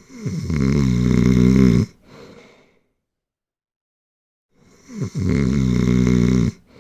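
Loud snoring, two snores about four and a half seconds apart. Each is a long buzzing breath in of nearly two seconds that dips in pitch as it starts, followed by a short, softer breath out.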